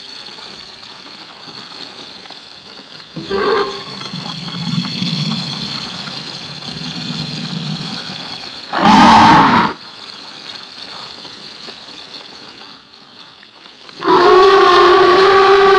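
A string of alligator roar and growl sound effects: a short roar about three seconds in, a low rumbling growl after it, a loud roar about nine seconds in, and a long, held, higher-pitched roar near the end.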